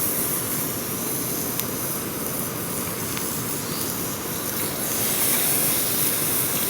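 Pork belly frying in a hot pan: a steady sizzling hiss with a few faint pops.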